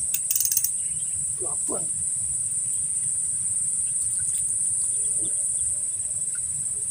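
Insect chorus, such as crickets, making a steady high-pitched shrill throughout, with a few brief clicks near the start and a couple of short faint calls about a second and a half in.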